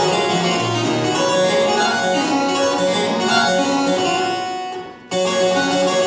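Georg Ranftl harpsichord playing a French Baroque piece in quick plucked notes. The sound dies away briefly about five seconds in, then the playing resumes.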